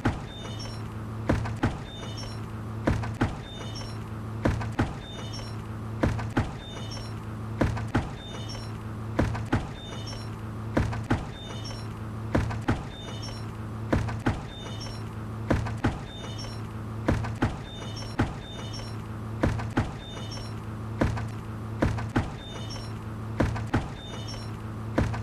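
A hanging bucket knocking and creaking in a steady rhythm, two knocks close together about every one and a half seconds, over a constant low drone.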